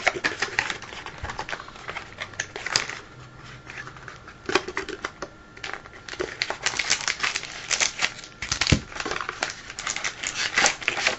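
A trading-card box being opened and its foil-wrapped packs handled: irregular crinkling of wrappers mixed with quick clicks and taps of cardboard.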